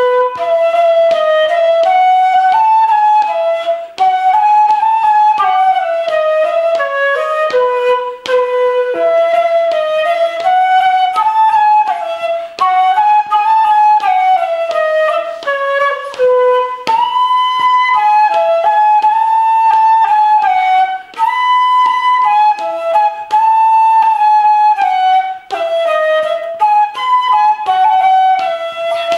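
Solo wooden transverse flute playing a traditional Swedish melody, flowing phrases in the middle register with short breaths between them.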